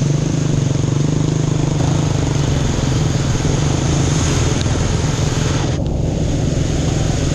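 Honda 150cc dirt bike's single-cylinder engine running steadily while riding, over a steady rush of wind noise that briefly drops about six seconds in.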